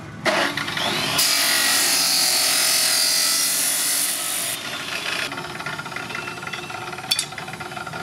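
Abrasive cut-off saw (chop saw) cutting through a flat steel bar: the motor comes up just after the start, then a loud, steady grinding hiss as the disc bites through the steel for about three seconds. The saw then runs on more quietly, with a sharp clank near the end.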